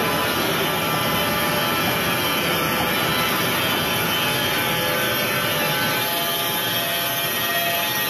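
LT300 horizontal band sawmill cutting lengthwise through a log, the saw head advancing along it. The blade and drive motor give a steady, loud whine with a continuous rush of sawing.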